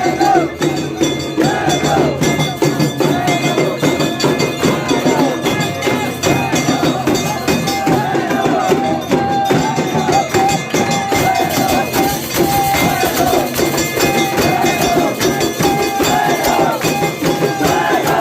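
Aarti music: fast, continuous clanging and beating of temple percussion, with bells and cymbals ringing over drums.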